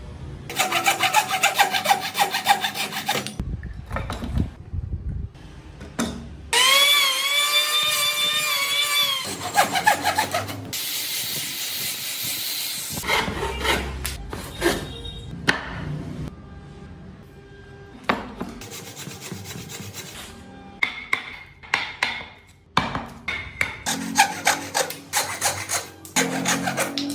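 Hand work on wood: fast sawing or rasping strokes. In the middle a motor whines for a few seconds with its pitch wavering, followed by a short burst of hiss, then scattered knocks and scraping strokes.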